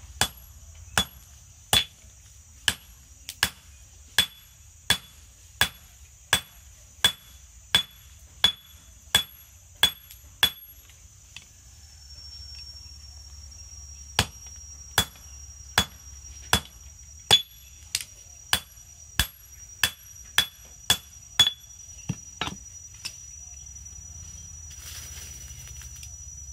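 Hand hammer striking red-hot steel on an anvil while forging a wangkil (small weeding hoe) blade, each blow with a short metallic ring. Steady blows come about one and a half a second. They pause for a few seconds in the middle, then resume and die out a few seconds before the end.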